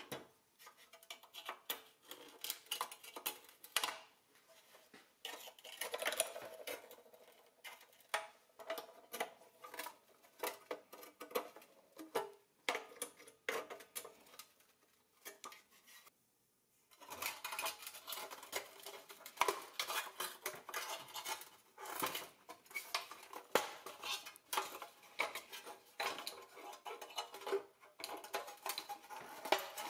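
Rusty pressed-steel body panels of a vintage Tonka toy crane being handled and taken apart on a wooden bench: irregular metal clinks, taps and scrapes, with pliers worked at the steel partway through. There is a brief pause a little past halfway.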